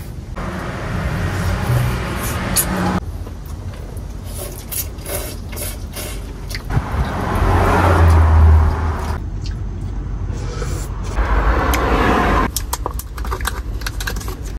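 Cars passing one after another, three swells of tyre and engine noise that rise and fade, with scattered clicks and knocks in between.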